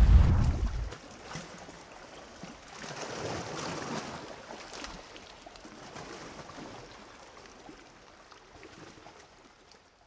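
Water sounds, a gentle flowing and lapping with small splashes and drips, fading out gradually to silence. A deep rumble cuts off about a second in.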